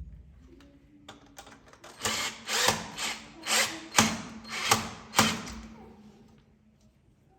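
A tool working in about seven short, scraping strokes, bunched between about two and five and a half seconds in, over a faint steady hum.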